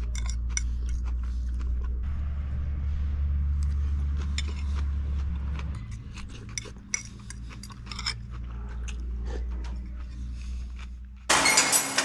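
Metal fork clinking and scraping against a ceramic bowl, with chewing, as a series of small sharp clicks. About eleven seconds in, a short, loud ringing outro sound effect comes in.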